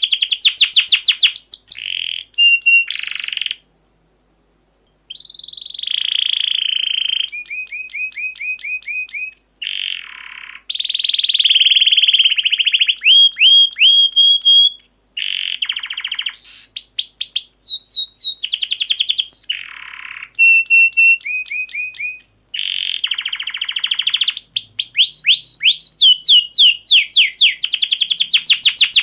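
Domestic canary singing a long, fast song of rolling trills and rapidly repeated high chirps, with a silent break of about a second and a half near four seconds in.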